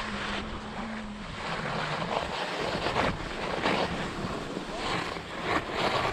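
Skis scraping and hissing over firm, wind-textured snow, surging with each turn about once a second, with wind buffeting the microphone underneath.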